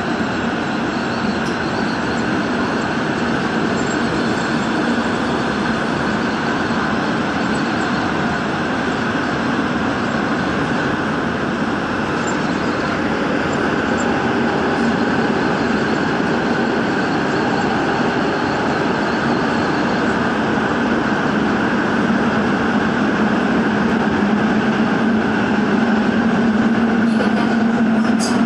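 Gwangju Metro Line 1 subway train running at speed through a tunnel: a steady rumble of wheels on rail with a low hum, growing slightly louder over the last few seconds.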